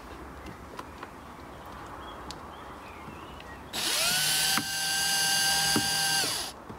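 Cordless drill driving a small screw into the foam of a car door's inner panel. A little past halfway the motor spins up to a steady whine, dips once briefly, then winds down just before the end.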